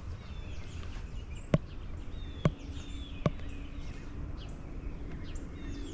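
Outdoor ambience: small birds chirping over a low, steady wind rumble on the microphone, with three sharp clicks about a second apart.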